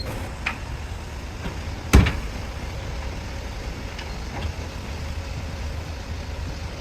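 A loud single knock about two seconds in, over a steady low rumble, with a few lighter knocks scattered through.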